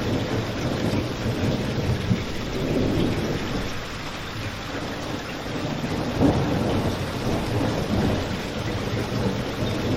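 Steady rain falling, with a low rumble underneath and a few brief crackles from a fireplace.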